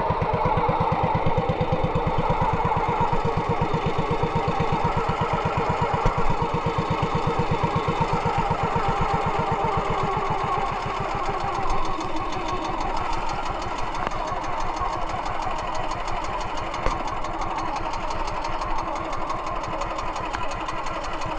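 Engine of a motorized outrigger fishing boat (banca) running at a steady speed with a fast, even beat, along with water rushing past the hull as the boat moves.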